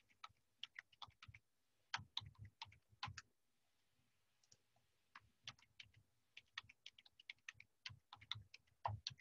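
Faint typing on a computer keyboard: irregular keystrokes in two runs, with a pause of a second or two between them.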